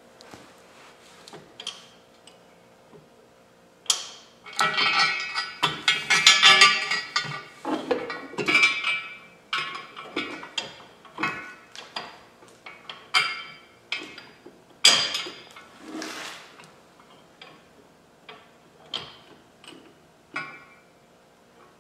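Metal clinking and rattling of bolts, brackets and tools handled by hand while fitting plow-mount hardware. The clinks come thick from about four seconds in to about nine seconds, then thin out to scattered single clinks and taps.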